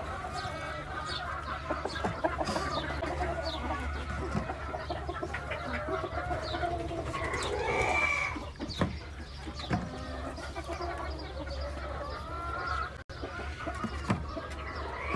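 Chickens clucking and calling all the way through, with one louder call about halfway through.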